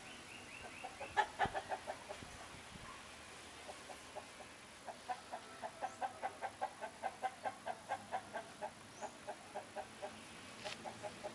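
A hen clucking, faint, in a steady string of short clucks about three a second, with a few scattered clucks in the first two seconds.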